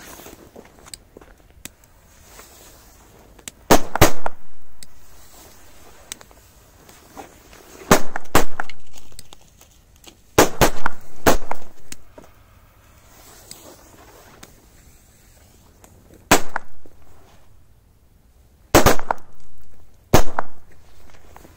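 Korsar-2 firecrackers exploding one after another: about ten powerful, sharp bangs at irregular intervals, several coming in quick pairs or clusters, each trailing off briefly.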